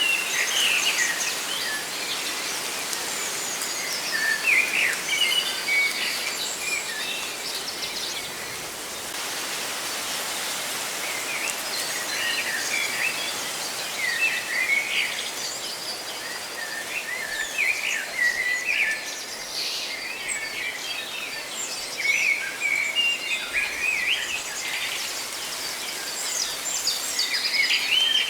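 Many small birds chirping and twittering, short quick calls coming one after another, over a steady hiss of rustling leaves.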